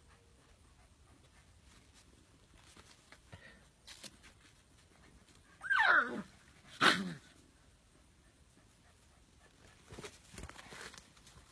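Husky puppy giving two short yelping cries about a second apart, each sliding down in pitch.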